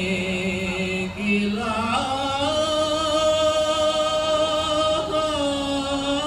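A man chanting a Sasak pepaosan tembang, a sung reading of a palm-leaf manuscript, with no accompaniment. He holds long, slightly wavering notes: a short break about a second in, then one long drawn-out note to the end.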